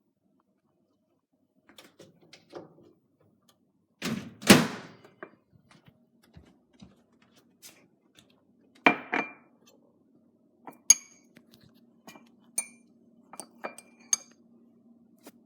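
A spoon clinking and knocking against a ceramic mug: a few heavy knocks, then short ringing clinks, over a faint steady low hum.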